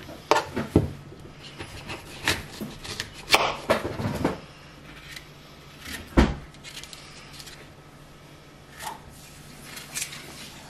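Kitchen knife cutting up an apple over a plastic cutting board: irregular clicks and knocks of knife, fruit and board. The loudest is a knock with a low thud about six seconds in.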